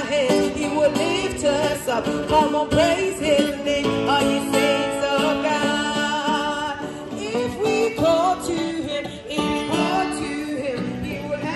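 Street buskers: a woman singing a melody into a microphone, amplified through small portable speakers, with a man playing an acoustic guitar.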